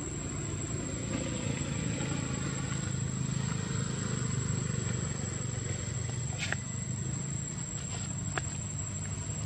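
Outdoor ambience: a steady high-pitched insect whine over a low rumble, with two faint clicks about six and a half and eight and a half seconds in.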